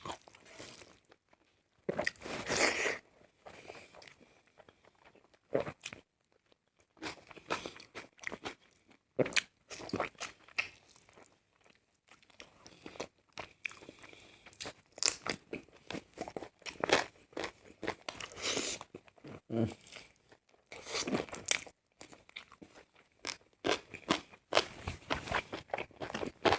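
Close-miked chewing and crunching of food, with wet, crackly bites coming in clusters and short pauses between mouthfuls.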